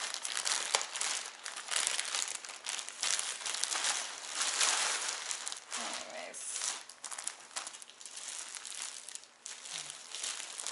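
Plastic packaging crinkling and rustling as a plastic shipping mailer is pulled open and a plastic-bagged item is drawn out and handled, busier in the first half and lighter toward the end.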